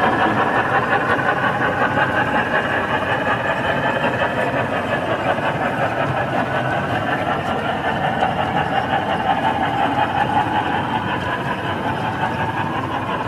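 O scale model freight train running past on the track, a steady rolling noise of its wheels and running gear that slowly fades.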